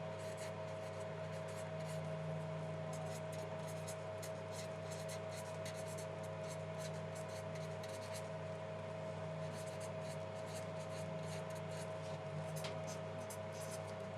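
A pen or marker writing, in quick runs of short scratchy strokes with brief pauses between them, over a steady electrical hum.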